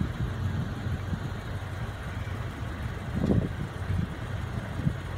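Off-road pickup truck's engine running under load as it climbs a steep loose-dirt hill, wheels spinning and throwing dust, with a brief louder surge about three seconds in.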